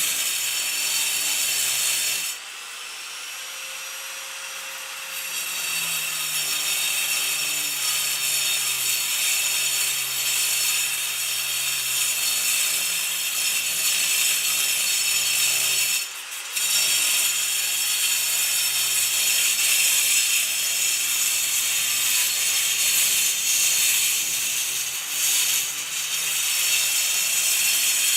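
Angle grinder with a cutting disc sawing through concrete: a steady, harsh grinding hiss. About two seconds in the disc comes out of the cut for about three seconds, and the free-spinning motor whine rises before it bites back in; it leaves the cut again briefly near the middle.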